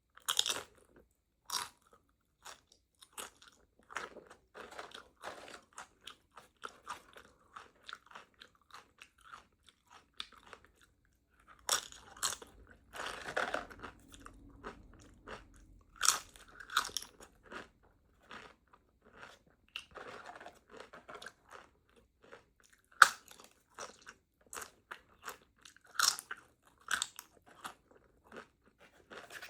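Chips with thick queso being bitten and chewed right at the microphone: crisp crunches come in bouts, with open-mouthed wet chewing between them.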